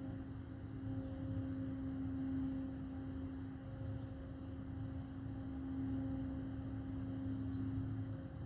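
Steady industrial hum from the GM Milford Proving Grounds, heard from a neighbouring property: one low droning tone with a fainter, higher tone that comes and goes, over a low rumble.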